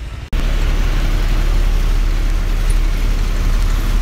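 Bus engine running with a loud, steady low rumble, heard from inside the bus. It cuts in abruptly about a third of a second in, after a moment of near silence.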